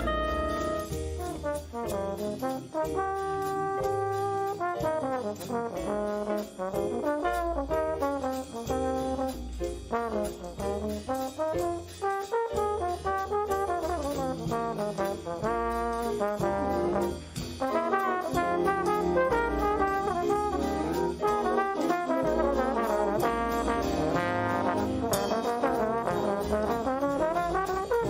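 Student band music with the brass leading, trombones and trumpets playing a moving melody over low accompaniment.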